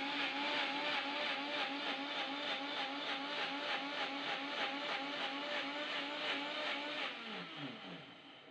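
Preethi Chefpro mixer grinder's motor running steadily as it grinds grated coconut in a small jar to extract coconut milk, its pitch wavering slightly. About seven seconds in it is switched off, and its whine falls in pitch as the motor spins down.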